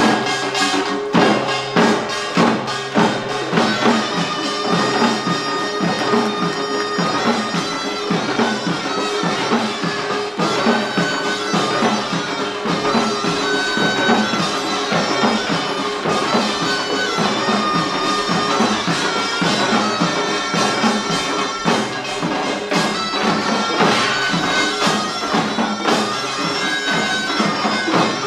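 Korean pungmul (pangut) band playing: a taepyeongso, the Korean double-reed shawm, carries a sustained, nasal melody over a steady, driving rhythm of drums and gongs.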